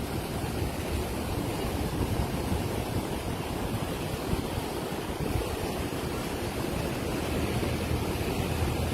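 Floodwater of a swollen river rushing by: a steady, even rush with most of its weight in the low end.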